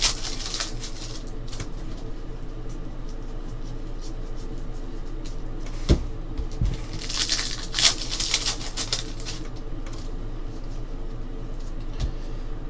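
Foil wrappers of trading-card packs crinkling as the packs are torn open and the cards handled. There are bursts of crinkling near the start and again about seven seconds in, and light knocks about six and twelve seconds in, over a low steady hum.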